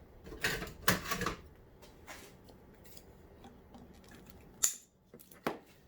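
Hands working at a dirt bike's handlebar, moving the throttle cables aside: rustling and a few sharp clicks of cable and metal parts, the two loudest about a second in and about four and a half seconds in.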